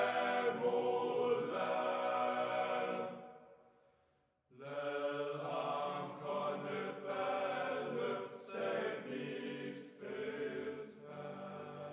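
Choral singing, voices holding sustained chords: the first phrase fades out about three seconds in, then after a short silence a new phrase begins.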